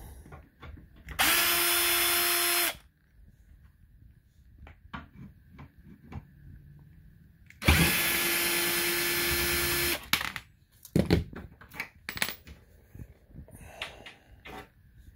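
Cordless drill-driver backing screws out of a wooden crib frame: two runs at a steady speed, the first about a second and a half long and the second about two seconds. A few short knocks follow near the end.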